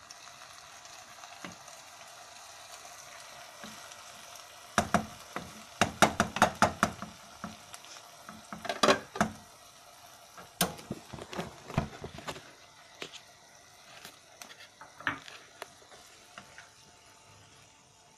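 Okra, onion and tomato stir-fry sizzling in a nonstick wok, with a spatula stirring and knocking against the pan. The knocks come in a quick clatter from about five seconds in until about twelve seconds, then a few single knocks.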